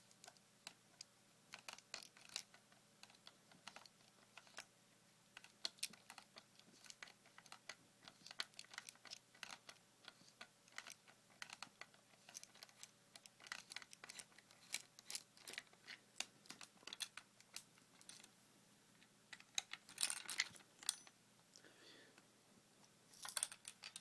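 Faint, irregular small clicks and taps of a screwdriver working a screw out of an airsoft rifle's stock and of the rifle's parts being handled, with a couple of short scraping rustles near the end.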